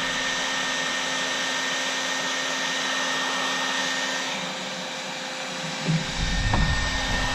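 Harbor Freight 1500-watt heat gun blowing steadily, a rushing airflow with a faint steady whine, softening the kayak's plastic hull. Low rumbling joins it about six seconds in.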